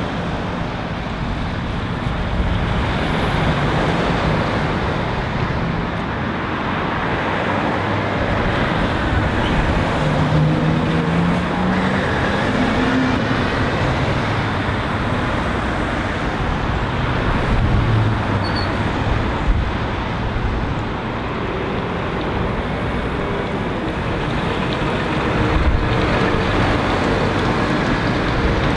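Steady road traffic: cars, vans and diesel lorries passing, with one engine note rising in pitch as a vehicle accelerates about ten seconds in.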